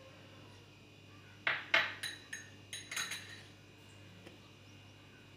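A metal fork clinking against a dish: about six quick, ringing clinks over roughly two seconds, starting about a second and a half in.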